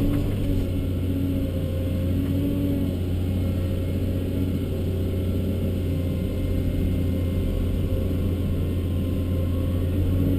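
Cat 324D long-reach excavator's C7 six-cylinder diesel running steadily under working load, heard from inside the cab. A steady low engine hum, with a higher whine that comes and goes as the hydraulics work the boom and swing.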